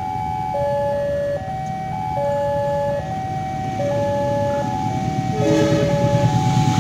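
Railway level-crossing warning alarm playing a repeating electronic tune of a few steady notes. The rumble of an approaching train rises under it from about two-thirds of the way in.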